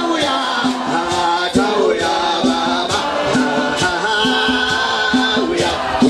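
Congregation singing a worship song together, over a steady percussive beat about twice a second.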